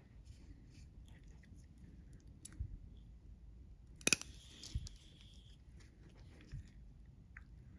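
Steel surgical instruments clicking as a needle driver and forceps are handled during suturing: a few soft clicks, and one sharp metallic click about four seconds in that rings briefly.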